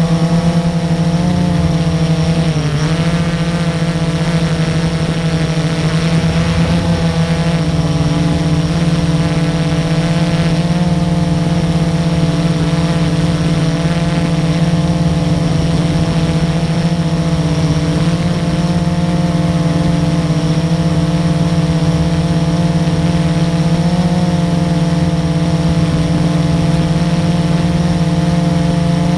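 Blade 350QX quadcopter's electric motors and propellers running steadily, heard up close from a camera on the airframe, as a loud whirring hum. The pitch dips and recovers slightly a few seconds in and again near the end.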